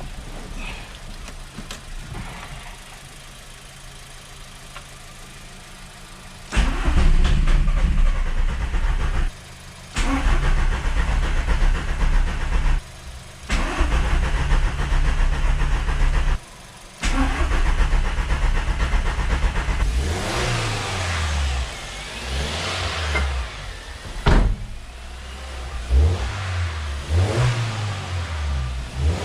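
Volkswagen Polo TDI diesel engine cranked on the starter in four bursts of about three seconds each, with the fuel plug off to prime the refitted injectors and the oil lines. From about two-thirds of the way in, the engine runs with its revs rising and falling, and there is one sharp click shortly after.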